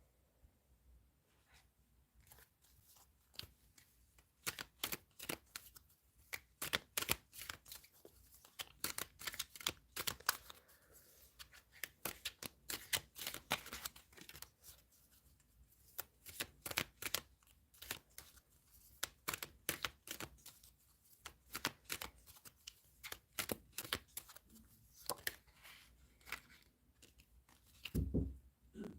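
Tarot cards being shuffled by hand: a long run of quick, irregular card clicks and riffles, with a brief low thump near the end.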